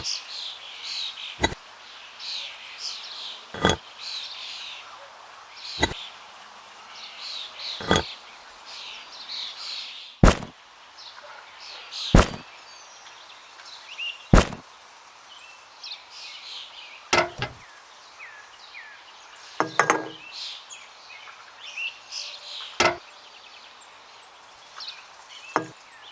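Sharp single knocks or taps roughly every two seconds, with birds chirping in the background.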